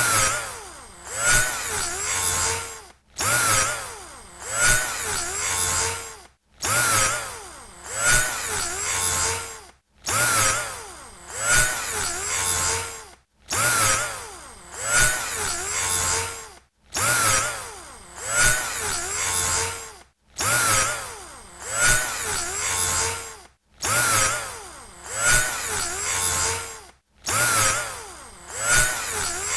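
Electric drill motor run in repeated bursts of about three seconds each, nine in all, with a short silence between them. In each burst the motor's pitch dips briefly and then climbs back to a steady running speed.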